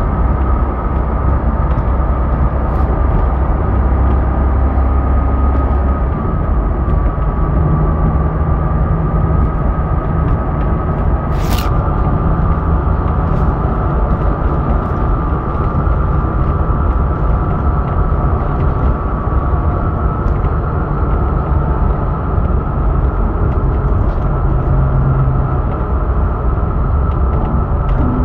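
Vehicle engine running with a steady low rumble and a faint, steady high-pitched hum above it, a new noise whose cause is unknown. A single sharp click about eleven seconds in.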